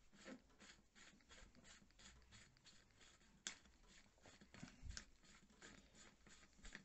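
Faint, irregular clicks and scrapes of a hand oil-filling syringe's fine-threaded end cap being unscrewed and handled, with one sharper click about three and a half seconds in and a dull knock near five seconds.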